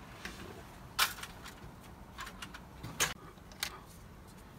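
A few separate sharp clicks and knocks of handling plastic gear: a loud one about a second in, and two more near three seconds and three and a half.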